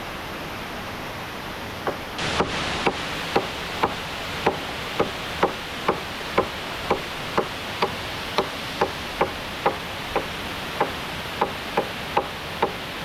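Steady rush of a waterfall, with a run of evenly spaced wooden knocks, about two a second, starting about two seconds in and stopping near the end: wood being struck repeatedly with a hand tool.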